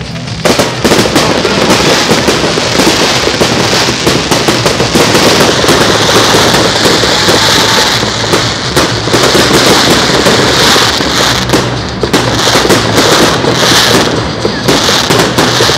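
A fireworks barrage: a dense, rapid run of bangs and crackling that begins about half a second in and keeps going without a break.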